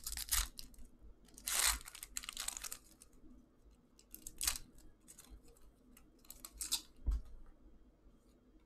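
Plastic trading card pack wrapper being torn open and crinkled in the hands, in several short rustling tears, with the cards slid out. A soft thump about seven seconds in.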